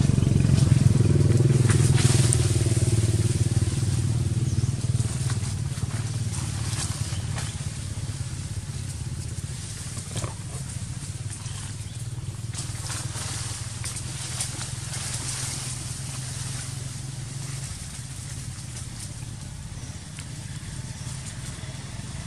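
A motorcycle engine running steadily, loudest at first and fading gradually away, with a few short clicks and rustles.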